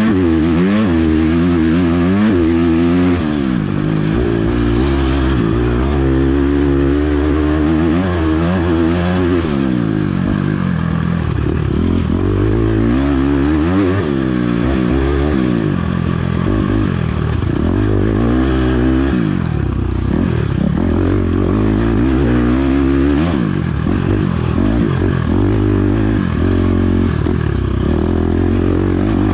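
Enduro dirt bike engine revving hard at race pace, its pitch rising and falling over and over as the rider works the throttle and gears, heard from a camera on board the bike. Some clattering and scraping runs underneath.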